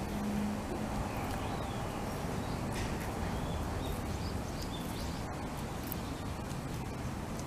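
Steady outdoor background noise with a few faint bird chirps scattered through it.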